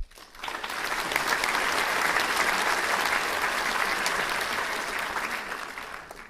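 Audience applauding, swelling up within the first second, holding steady, then fading away near the end.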